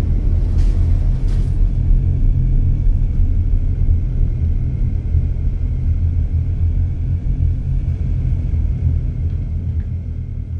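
Loud, steady low rumbling drone from a horror film soundtrack, easing off slightly near the end.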